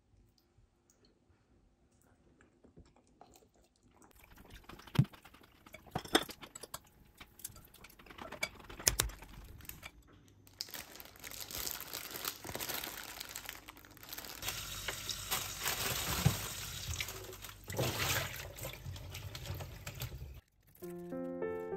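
Kitchen tap running into a stainless steel sink while wild garlic leaves are rinsed in a salad spinner basket. Before it come a few sharp clicks and knocks.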